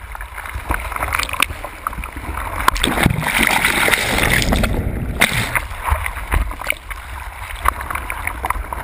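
Breaking whitewater rushing and splashing against a surfboard-mounted camera, with a steady low rumble of water buffeting the housing; around the middle the camera is washed under the foam and the hiss grows brighter.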